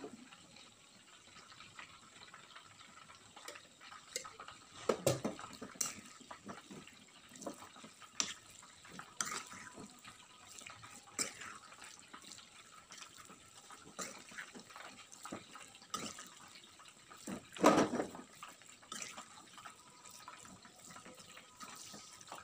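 Spiced minced meat frying in a kadhai with a little oil: a faint steady sizzle, broken by scattered scrapes and clinks of a steel spoon stirring it against the pan, the loudest about 18 seconds in.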